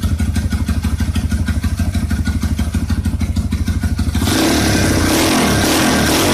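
Kawasaki D-Tracker 150's single-cylinder four-stroke engine idling with an even, rapid low pulse. About four seconds in, a louder, steady sound with a wavering higher pitch abruptly takes over.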